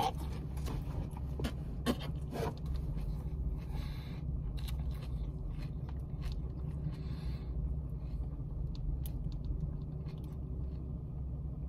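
A mouthful of raw leafy greens (chard and baby spinach) being chewed: irregular crunching and wet mouth clicks, thinning out after about eight seconds. A steady low hum runs underneath.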